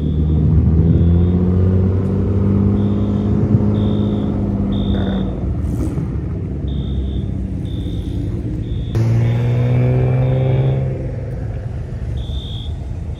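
Modified car engines accelerating past one after another: one engine climbs in pitch over the first five seconds, then about nine seconds in a second one comes in suddenly and revs up before falling back.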